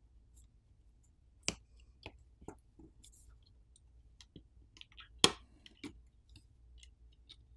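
Sharp small clicks of a Google Pixel 7a's main board being worked loose and lifted out of its midframe, with fainter ticks from fingers handling the parts. The two loudest clicks come about one and a half seconds in and just past five seconds in.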